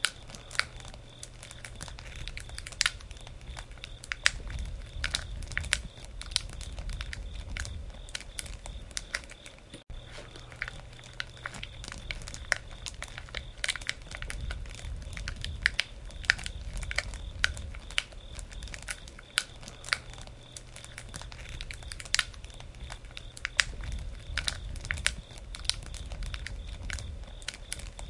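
Wood campfire crackling: a steady low rumble of burning with many irregular sharp pops and snaps, the sound cutting out for an instant about ten seconds in.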